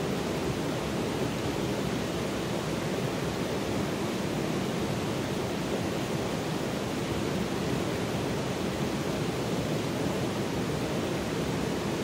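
Shallow stream flowing over rocks: a steady rushing of water with no change.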